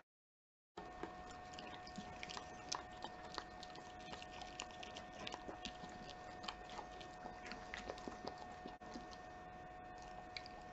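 A Keeshond dog chewing a small piece of meat: a string of irregular, faint wet clicks and smacks of jaws and lips, starting after a brief silence, over a steady faint hum.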